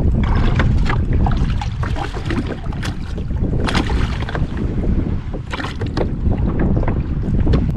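Strong wind rumbling on the microphone, with water slapping and splashing at the side of a kayak, a run of short sharp splashes and knocks, as a hooked smallmouth bass is brought alongside.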